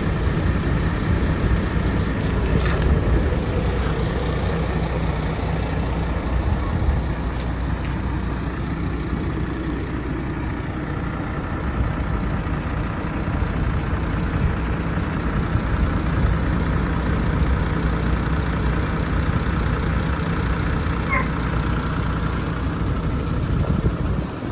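Diesel engine of a 2018 MAN TGX 26.500 tractor unit, a 12.4-litre straight-six, idling steadily.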